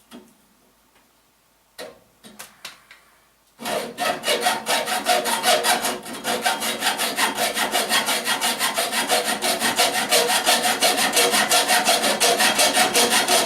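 Hand saw cutting through a copper water pipe in rapid, even back-and-forth strokes, starting after a few light knocks.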